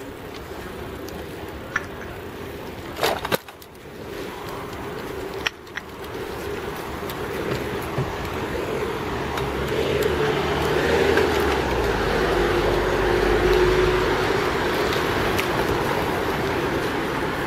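Road traffic picked up by the microphone of a camera hanging from its wearer's neck, with a few sharp knocks in the first six seconds. A vehicle draws closer and passes, loudest from about ten to fourteen seconds in.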